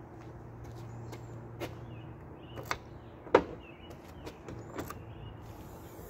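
Sharp clicks and knocks of a 1982 Ford Mustang GT's rear hatch lock being worked by hand, the loudest about a third of the way in, as the latch releases and the hatchback is opened. A steady low hum runs underneath.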